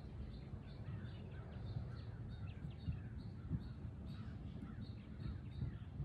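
Wild birds calling, with a short high note repeated about twice a second and quick falling calls, over a low steady wash of small waves lapping against shoreline rocks.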